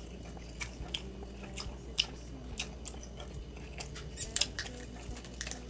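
A person chewing food, with scattered short mouth clicks and smacks at an irregular pace and a small cluster of them about four seconds in.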